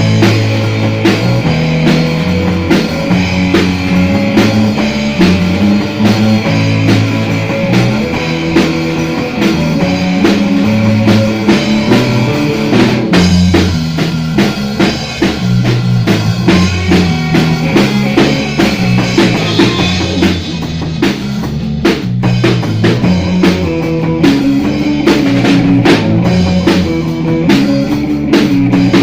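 Instrumental rock played by a band: a Fender Modern Player Jazz Bass carrying a moving bass line over a Yamaha drum kit, with an Aria Pro electric guitar.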